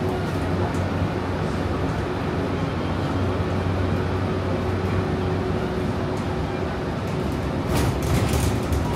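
Steady running noise inside a moving passenger transit vehicle: a low hum with a steady underlying tone. A few brief rattles or clicks come near the end.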